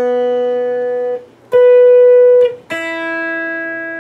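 Fesley FST 400M electric guitar played one note at a time for an intonation check. The B string is plucked open, then at the 12th fret an octave higher, then the high E string is plucked; each note rings about a second before it is damped.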